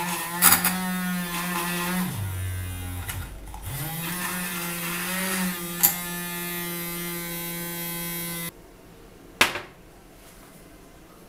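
The small electric motor of a 3D-printed coffee mixer spins a whisk in a glass of coffee, whipping it into foam. Its hum drops sharply in pitch about two seconds in, climbs back a second and a half later, runs steadily, then cuts off suddenly about three-quarters of the way through, followed by a single knock.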